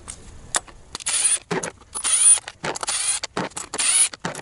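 Cordless Milwaukee Fuel power driver whirring in short bursts, about one a second, as it backs out the Torx bolts on the engine cover. The bursts begin about a second in, with clicks between them.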